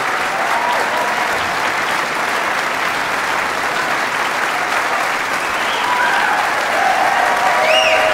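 Concert-hall audience applauding steadily, with some cheering rising above the clapping near the end.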